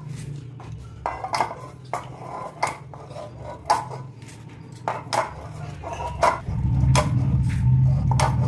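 A hand scrapes ground cumin and mustard paste off a stone grinding slab, with glass bangles on the wrist clicking in scattered sharp ticks. A low steady hum comes up about two-thirds of the way in.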